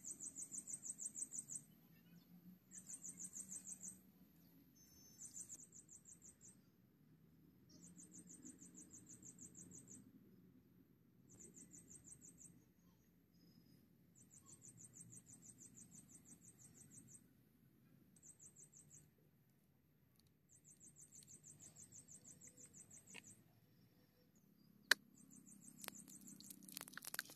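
Rapid high-pitched chirping trills from a wild creature, in bouts of one to three seconds that repeat with short pauses. Near the end a sharp tap, then a sizzling crackle as the vegetables fry in the small hot iron pan over the fire.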